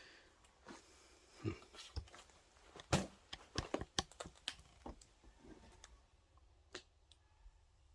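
Footsteps crunching and crackling over fallen drop-ceiling tile and drywall debris, in irregular sharp cracks and clicks that are thickest about three to five seconds in.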